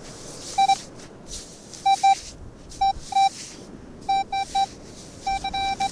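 Metal detector giving short, identical target beeps over a buried metal object, singly, in pairs and in quick runs, between soft swishing sounds.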